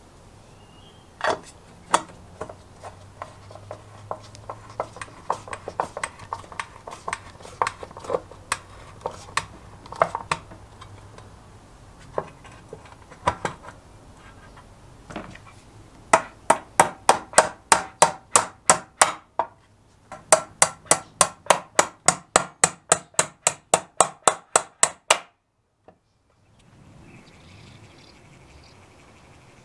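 Metal hand-tool work on a sandwich maker's hinge: scattered light clicks and taps of handling, then two long runs of sharp, evenly spaced metallic clicks at about five a second, which cut off suddenly. A faint steady high tone follows near the end.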